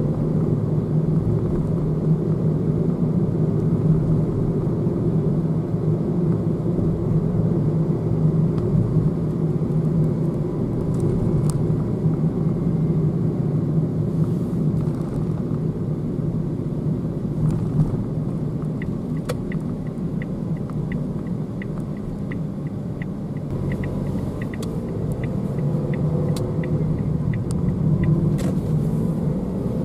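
Steady low rumble of road and engine noise inside a moving car's cabin, with a run of light, evenly spaced ticks about twenty seconds in.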